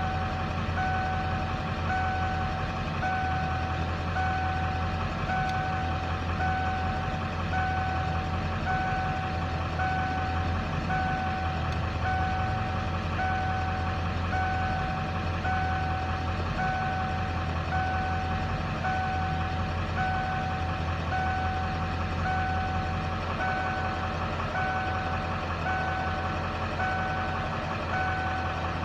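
1996 Ford F-250's 7.3 L IDI V8 diesel idling rough, a steady low rumble. An electronic warning chime beeps steadily over it, about three beeps every two seconds.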